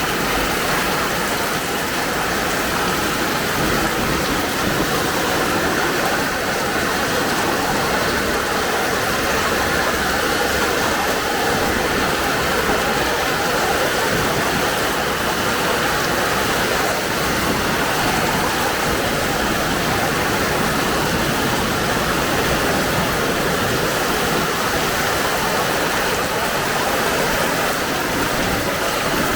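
Heavy rain pouring steadily, a dense even hiss of drops on the ground and surfaces.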